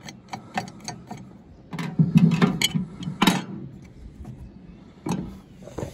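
Small clicks of a screwdriver working the air cleaner cover screw on a Poulan 245A chainsaw. About two seconds in come louder knocks and rattles as the cover and air filter are taken off, and two more knocks near the end.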